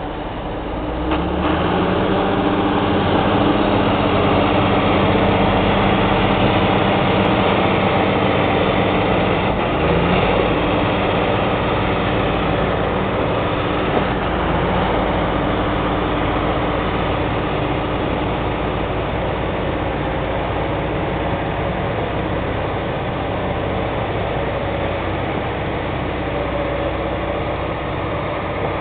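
John Deere tractor's diesel engine running steadily; it gets louder about a second in and then holds.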